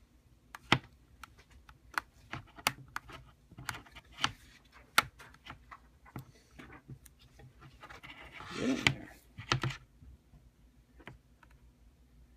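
Irregular light clicks and taps as an iPad mini and its new glass digitizer are handled and pressed into place on a workbench, a few a second, with a brief louder rustle about nine seconds in.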